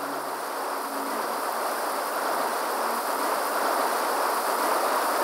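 Shallow river running over rocks: a steady hiss of flowing water that grows slightly louder. Faint low music notes fade out in the first few seconds.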